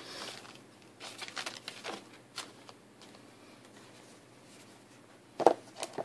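Cardboard packaging being handled: scattered rustles and scrapes in the first couple of seconds, then a sharp knock about five and a half seconds in, followed by a lighter click.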